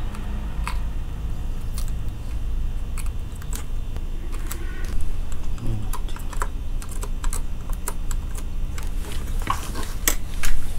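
Scattered small clicks and taps of hand tools against a car radio's circuit board and metal chassis while a tiny bulb is desoldered, over a steady low hum.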